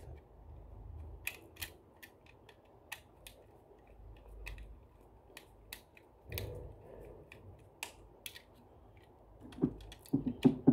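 Screwdriver turning a terminal screw on an air conditioner switch as the live wire is clamped: light, irregular clicks and ticks of the blade in the screw head, coming faster and louder near the end.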